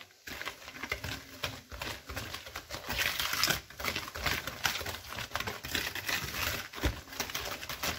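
Hand wire whisk beating a thick, creamy butter, sugar, oil and egg mixture in a cut-glass bowl: a fast, irregular run of scraping and clicking strokes.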